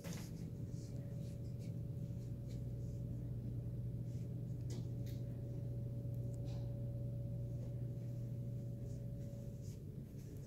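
A steady low hum with a thin steady tone held above it, and a few faint clicks scattered through. The thin tone stops just after the end.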